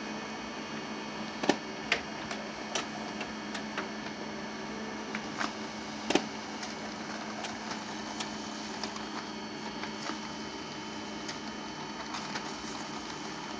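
HP LaserJet 5M laser printer printing a configuration page: the mechanism runs with a steady whir and hum, with scattered sharp clicks, the loudest about a second and a half, two and six seconds in, as the sheet feeds through and out into the top tray.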